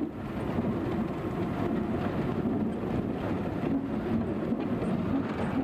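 Motor vehicle engine and tyres running steadily on a dirt road, heard from inside the moving vehicle as a low rumble.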